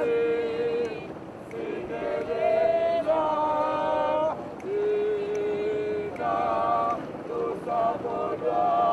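A group of people singing together unaccompanied, in long held notes with short breaks between phrases.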